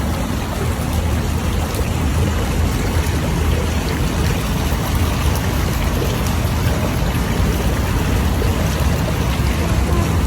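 Steady running water from a decorative garden pond's stream or waterfall, with a strong low rumble underneath.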